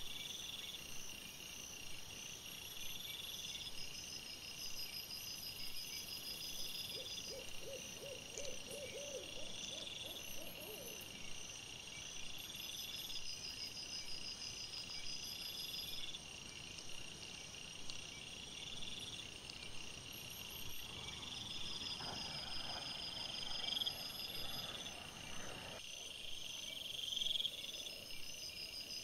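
Night insects chirping in a steady rhythmic pulse of high notes. About seven seconds in, a run of about eight quick, low repeated call notes lasts some three seconds, and a rustling noise comes in for a few seconds near the end.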